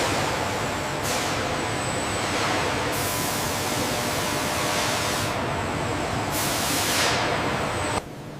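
Loud industrial hissing, like air or spray under pressure, in repeated surges about a second in, from about three to five seconds, and again near seven seconds, over steady machinery noise; it drops off sharply just before the end.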